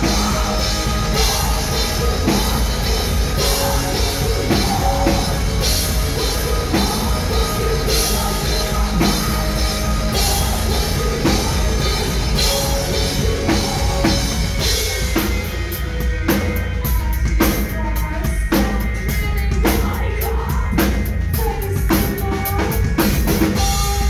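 Live metal band playing: drum kit, bass and guitars with vocals over the club PA. About two-thirds of the way in, the dense wall of sound thins and separate drum hits stand out, with a sung line over them.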